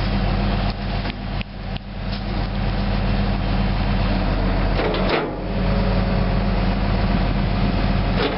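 Tree spade machine's engine running steadily with a low hum, dipping briefly in level about a second and a half in and again about five seconds in, while its spades are set around a tree trunk.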